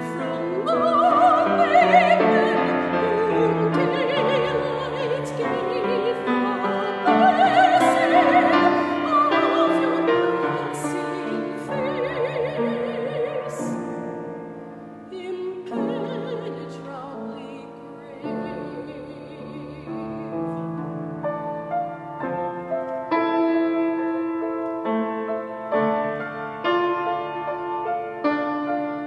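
Classical soprano singing with wide vibrato over piano accompaniment. The voice stops about halfway through and the piano carries on alone.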